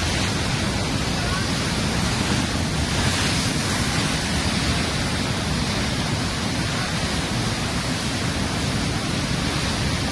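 The South Fork Stillaguamish River in record flood, pouring through a whitewater cascade in a loud, steady, unbroken roar that is heaviest in the low range.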